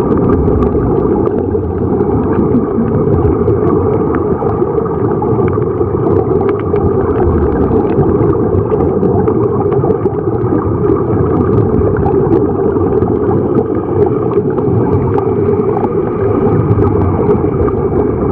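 Steady, muffled underwater rumble with gurgling. Air bubbles stream from sea-walker diving helmets that are fed by a surface air hose.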